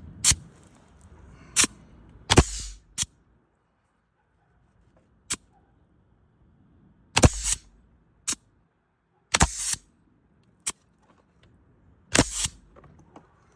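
Pneumatic roofing nail gun firing about ten times at irregular intervals while fastening loose cedar shakes. Each shot is a sharp crack, and several are followed by a short hiss of exhaust air. The air pressure is turned down as low as it will go.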